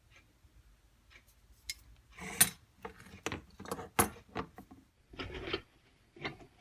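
Small metal tools handled and set down, clinking and knocking against each other and a hard surface, with two sharper knocks about two and four seconds in and a brief scrape near the end.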